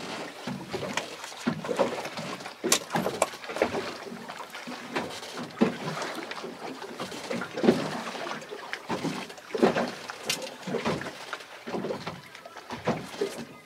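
Water lapping and slapping against the hull of a small fishing boat, with irregular knocks and clicks of uneven strength.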